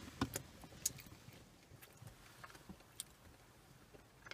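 Quiet chewing of soft molasses buns, with a few faint mouth clicks and smacks.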